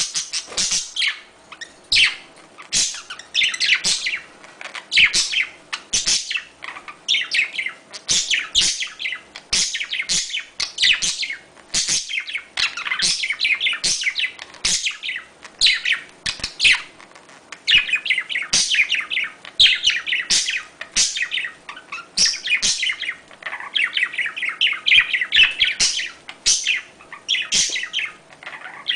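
Budgerigars chirping and warbling in a rapid, continuous chatter of short high calls: the courtship chatter of breeding budgies.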